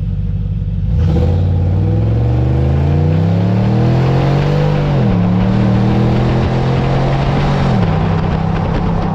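Nissan Patrol Y62's 5.6-litre petrol V8 through a Torqit performance exhaust, accelerating hard. The pitch climbs steadily, then drops at an upshift about five seconds in and climbs again until a second upshift near the end.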